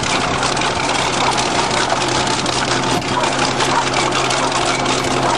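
Heavy engine running steadily at a constant pitch, with a dense crackling noise over it.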